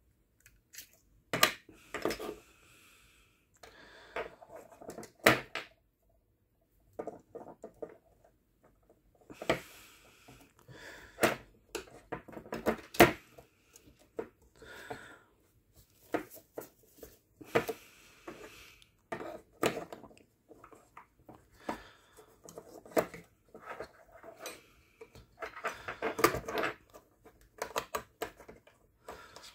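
Plastic and metal parts of an airsoft electric gun's gearbox clicking and knocking as the cylinder and piston assembly is handled and seated back into the metal gearbox shell. Irregular clicks and taps, with a short pause partway through.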